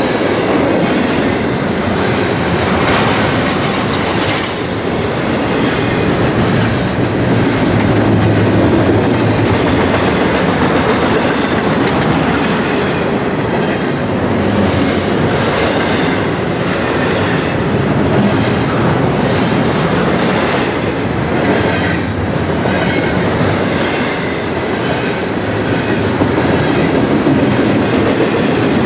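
Railway cars rolling past on the track: a steady loud rumble with repeated clicking of wheels over rail joints throughout.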